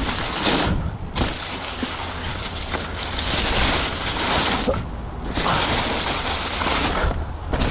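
Polygon Siskiu T7 mountain bike's tyres rolling through a deep layer of fallen leaves, a continuous rustling crunch that drops away briefly three times, over a steady low rumble.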